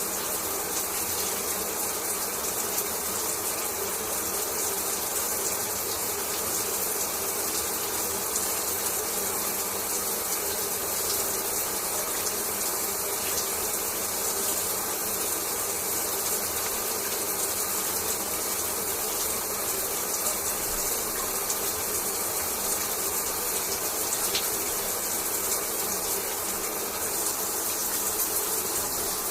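Shower water spraying and falling steadily, an even hiss of running water with no breaks.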